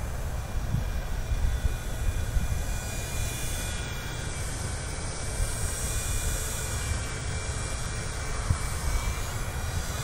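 Small WLtoys V911 fixed-pitch RC helicopter's electric motor and rotors whining steadily as it flies, the pitch drifting a little. Wind rumbles on the microphone underneath.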